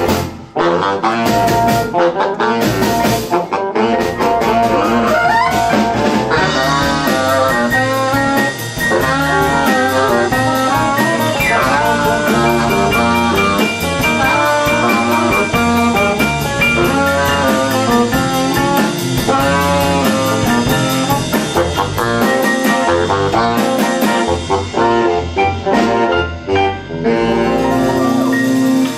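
Live jump-blues band playing an instrumental passage: saxophone lead over hollow-body electric guitar, upright bass and drum kit. A few short band hits with gaps between them open the passage, then the band plays on steadily.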